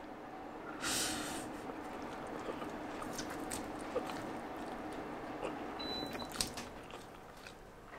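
A person slurping a forkful of spicy instant noodles, with a sharp hissing slurp about a second in, then chewing with small wet clicks.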